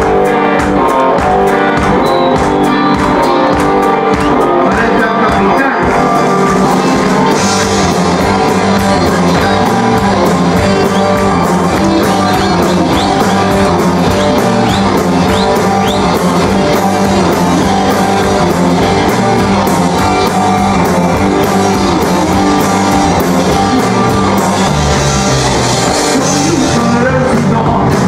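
A rock band playing live: electric guitar, bass and drums, with a singer's voice over the band and cymbal crashes about seven seconds in and again near the end.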